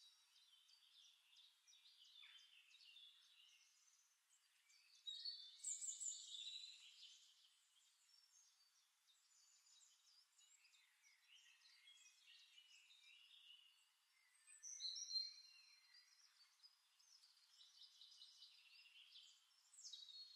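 Near silence, with faint high-pitched bird chirps in the background that come and go, a little louder twice.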